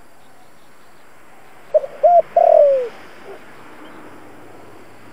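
Spotted dove cooing: one phrase about two seconds in, a short note, an arched note, then a longer note that falls away at its end.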